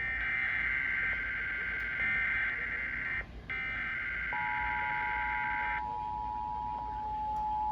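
Emergency Alert System SAME header: two long bursts of shrill warbling digital data tones with a short break between them. Partway through the second burst, the steady two-tone EAS attention signal starts and holds, announcing the start of a new alert.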